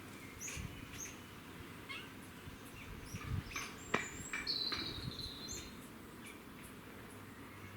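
Grey squirrels calling in a tree: a run of short high squeaks and chirps, with a sharp click about halfway and a longer drawn-out high call just after it. The calls belong to squirrels competing, taken for mating behaviour.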